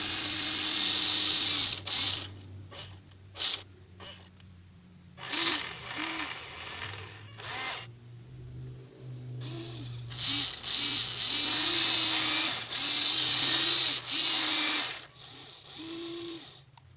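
Huina 1593 RC excavator's small electric motors and gearboxes whirring in stop-start bursts as its arm, boom and tracks are worked. There are a few long runs and several short spurts, and it stops just before the end.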